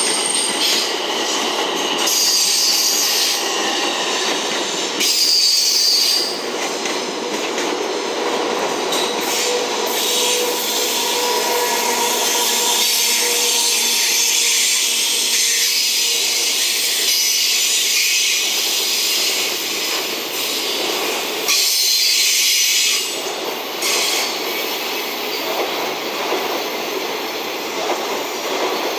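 Container freight train passing close by: a steady rolling noise of steel wheels on the rails, with short spells of high-pitched wheel squeal, a few seconds in and again about three-quarters of the way through.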